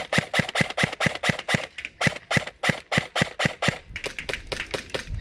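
A Krytac airsoft electric rifle firing a rapid string of single shots, about four to five a second, each a sharp snap of the gearbox and piston.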